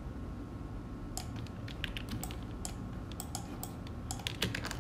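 Irregular clicks of a computer mouse and keyboard, coming faster near the end, over a faint steady room hum.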